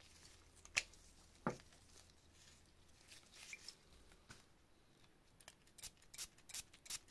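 Faint handling noises of a glass perfume bottle in gloved hands: two sharp knocks early on as the cap comes off and is set down, then a quick run of short clicks from the atomiser and cap near the end.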